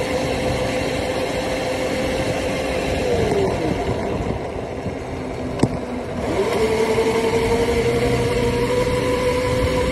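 Small dirt bike's motor running at a steady whine as it rides along, falling in pitch as it slows about three seconds in, then rising again as it speeds back up. A single sharp click about halfway through, with wind and road noise throughout.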